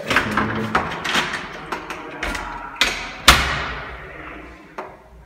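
A series of knocks and thuds, the loudest a sharp bang about three seconds in that rings out for about a second.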